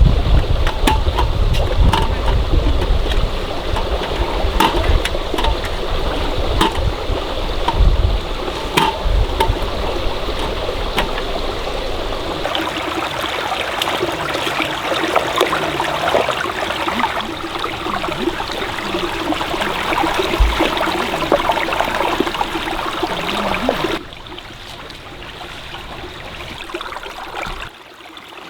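Stream water flowing steadily. Through the first half there are scattered sharp clicks and a low rumble, and about three-quarters of the way in the sound suddenly drops much quieter.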